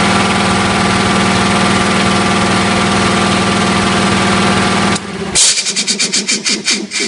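Three-cylinder electric air compressor running steadily, then cutting off about five seconds in. Right after, its solenoid head-pressure relief valve opens and vents the head pressure with a loud hiss that comes in quick, even puffs and fades.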